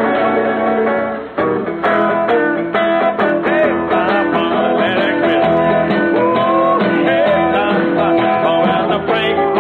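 Jazz number played on an archtop guitar, with a man's voice singing over it, after a short break in the playing about a second in. Heard through an old television kinescope soundtrack that carries nothing of the treble.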